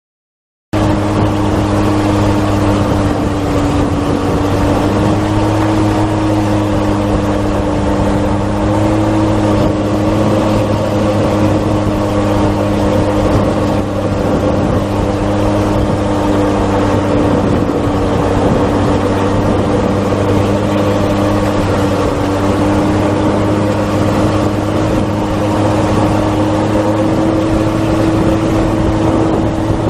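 Jet ski engine running steadily at towing speed, its even drone mixed with the rush of the wake spray. The sound starts just under a second in.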